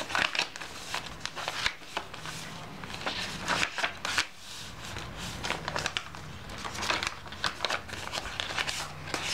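Paper pages of a handmade journal rustling and crinkling as hands turn and smooth them, with irregular papery scrapes and flaps.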